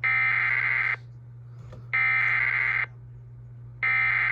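Emergency Alert System SAME header: three identical bursts of digital data tones, each just under a second long with about a second between them, over a steady low hum. The header opens an alert, here the severe thunderstorm warning that follows.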